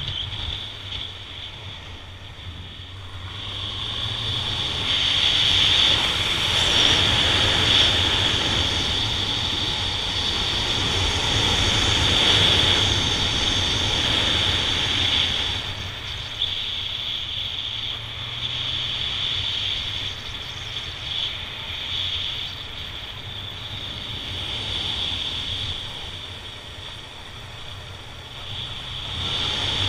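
Honda Nighthawk 750's air-cooled inline-four engine running under way, mixed with wind rushing over the microphone. It grows louder a few seconds in, eases off past the middle, and rises again near the end.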